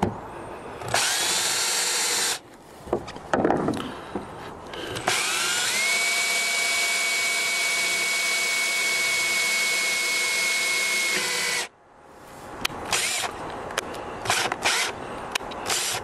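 Cordless drill boring a bolt hole through a boat's deck: a short run, a pause, then a run of about six seconds whose whine rises and then holds steady before cutting off suddenly. A few light clicks and knocks follow near the end.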